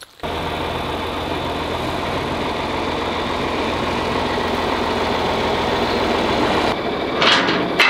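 John Deere farm tractor engine running steadily, a low even hum, thinning out about seven seconds in.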